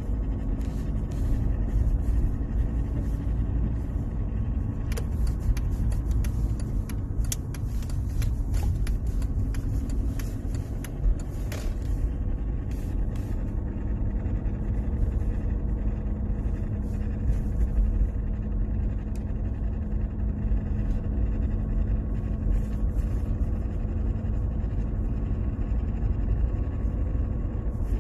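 Mercedes-Benz W203 C-Class running with a steady low rumble and a held whining hum, and a spell of sharp clicks about a third of the way in. This is the noise the owner calls strange and places at the gearbox, cause unknown.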